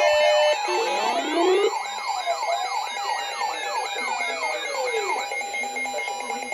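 Several weather alert radios sounding their alarms at once: overlapping siren-like sweeps rising and falling, with fast warbling tones and a few steady beeps. The sweeps thin out near the end.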